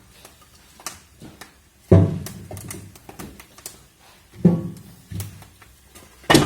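Firewood being loaded into the firebox of a water-jacketed boiler fireplace: a series of heavy knocks, the loudest about two seconds in, about four and a half seconds in and at the very end, with lighter knocks between.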